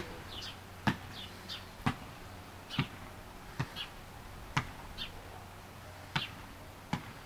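Slow footsteps on a concrete walk, a sharp step about once a second, with a small bird chirping short falling notes in between.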